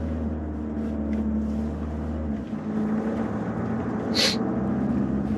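Car engine and road noise heard from inside the cabin while driving slowly downhill, a steady hum whose low note changes about halfway through. A brief high-pitched sound comes about four seconds in.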